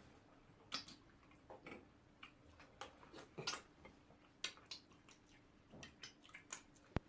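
Quiet, irregular wet smacking and chewing mouth sounds of someone eating soup and soft starch with the mouth open, with one sharp click near the end.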